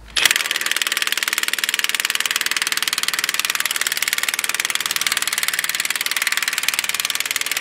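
Cordless impact wrench hammering on a front suspension nut in a rapid, even rattle for about seven seconds before stopping. The nut does not break loose, and the tool's battery is running dead.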